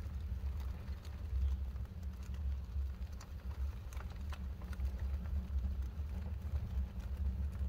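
Wood fire crackling inside a newly welded steel stove during its first burn-in, with sharp irregular pops over a steady low rumble.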